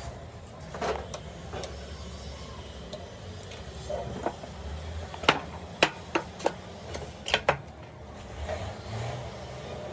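Irregular sharp knocks and clicks from work on the engine, about ten of them, bunched from about five seconds in, over a low steady hum.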